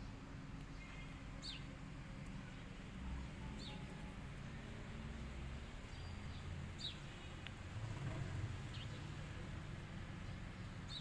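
Birds chirping now and then: a handful of short, high chirps that slide downward, spaced a couple of seconds apart, over a low steady background rumble.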